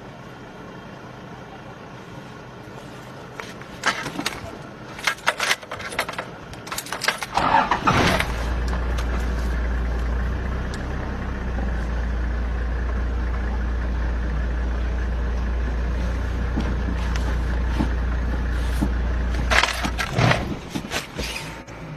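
A car engine starting about eight seconds in, then running at a steady idle. Irregular knocks and rustles come before it and again near the end.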